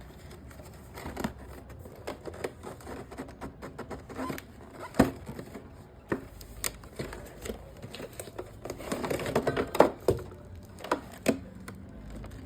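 Headphone box and packaging being opened and handled: irregular clicks, taps and crinkling rustles, with sharper knocks about five seconds in and near ten seconds.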